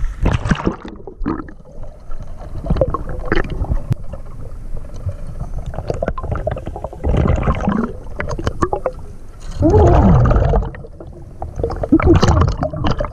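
River water gurgling and sloshing as heard by a camera plunged under the surface, with uneven surges of bubbling. The loudest surge comes about ten seconds in.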